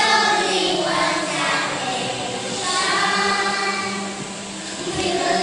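A group of young children singing together as a choir, in sung phrases with held notes; one phrase fades about four seconds in and another begins near the end.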